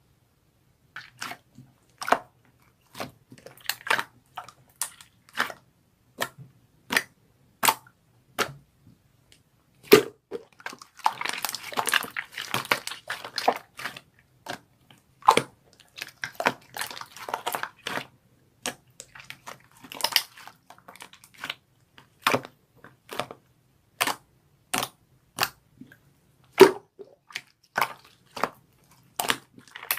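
Hands handling crinkly plastic packaging: irregular sharp clicks and taps, with a longer stretch of crinkling rustle about ten seconds in and another shorter one a few seconds later.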